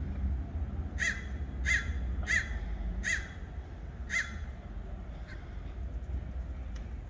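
A bird calling five times in quick succession, from about a second in to about four seconds in, over a steady low rumble.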